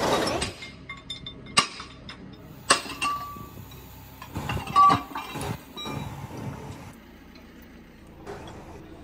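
Metal parts and tools clinking and knocking during engine work, with a few sharp ringing strikes about one and a half, three and five seconds in, the last the loudest.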